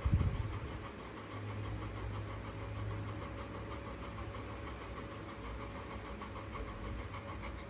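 Golden retriever panting rhythmically with her mouth open, over a steady low hum.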